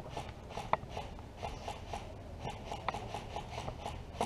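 Scattered gunfire from paintball markers and airsoft guns elsewhere on the field: short, sharp pops at an uneven pace of a few a second, fairly faint, over a low steady rumble.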